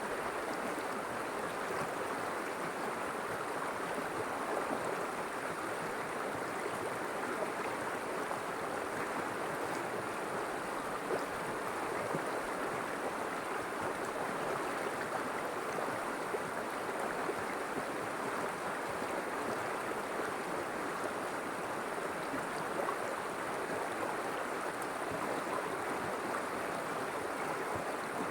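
River water flowing steadily over stones, a continuous rushing with small splashes and gurgles.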